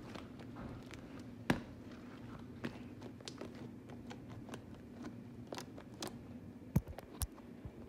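Homemade slime being squeezed and kneaded by hand, giving a string of small wet clicks and pops, with a louder pop about a second and a half in and two more near the end. A steady low hum runs underneath.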